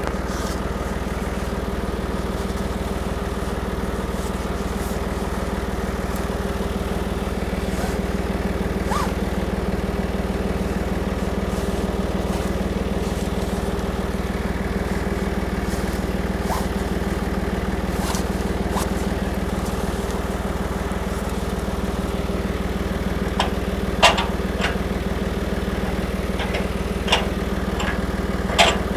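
John Deere tractor's diesel engine idling steadily. A few sharp knocks come near the end, from work at the top of the band saw hanging from the loader.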